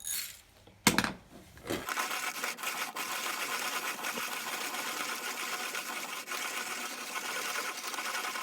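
Leinbrock's Ideal 1200 hand-cranked conical burr coffee grinder grinding coffee beans on its finest setting: a steady, fast, even crunching as the handle is turned, starting about two seconds in after a single sharp knock.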